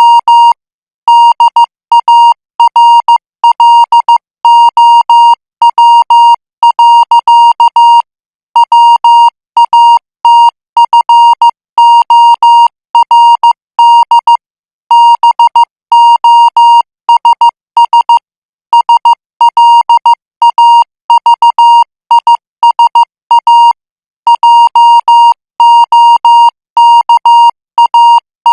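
Morse code practice tone sent at 14 words per minute: a steady tone of about 1 kHz keyed on and off into dots and dashes, with a few longer pauses between letter groups.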